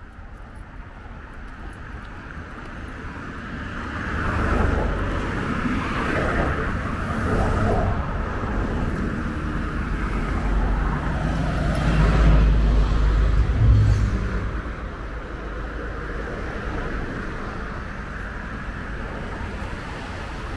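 Motor traffic passing on a town street: engine and tyre rumble builds from about four seconds in, is loudest around twelve to fourteen seconds, then fades.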